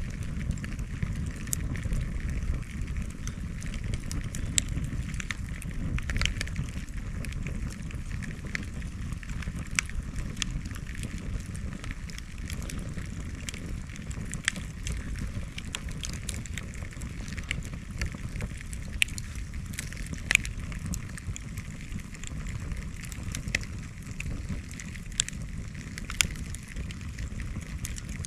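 Bonfire of cleared bamboo and brush crackling, with sharp, irregular pops over a low steady rumble.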